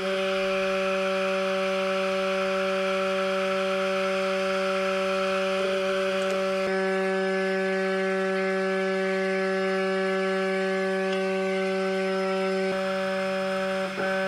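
Handmade miniature popcorn popper's small electric motor running with a steady, even whine.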